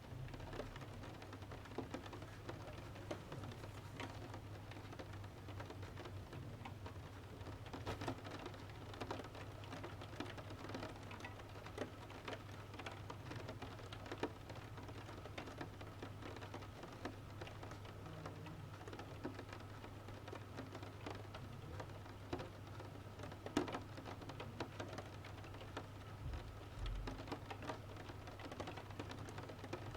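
Rain pattering on a window mixed with the crackle of a wood-burning stove fire: many small sharp pops, one louder pop about two-thirds of the way through, over a steady low hum.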